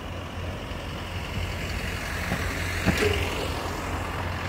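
Motor traffic on a city street: a steady low engine rumble with the hiss of passing vehicles, and one sharp click about three seconds in.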